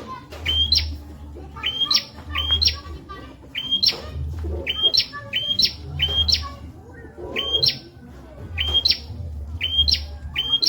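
Prenjak (prinia) calling over and over, a sharp chirping note that sweeps steeply upward, repeated more than once a second, often in quick pairs. A low rumble comes and goes underneath.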